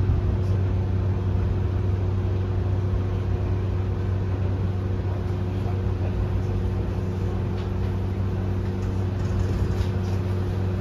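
Tokyo Monorail 10000 series car running, heard from inside the car: a steady low hum with a few steady tones above it.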